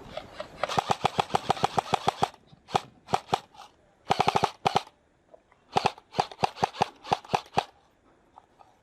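Airsoft guns firing in an exchange. A rapid burst of about ten shots a second lasts a second and a half, followed by a few single shots and another short burst. Near the end comes a string of shots at about six a second.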